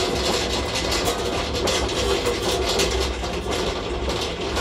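Tormach 1100MX automatic tool changer carousel rotating under power as it references the tool tray, with a loud, continuous rattling. This is the jitter the owner blames on a faulty tool changer.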